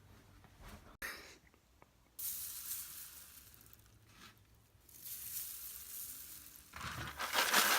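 Food sizzling as it fries in a hot pan, in a few separate stretches broken by quiet gaps, loudest near the end.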